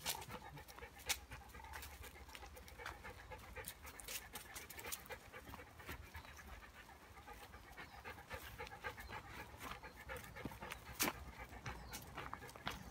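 A dog panting, with irregular footstep crunches and sharp snaps on the path, the loudest about a second in and again near the end.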